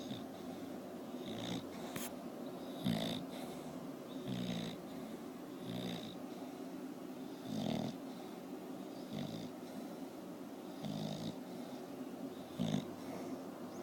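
English bulldog snoring in its sleep, a rasping snore about every one and a half to two seconds, some eight in all.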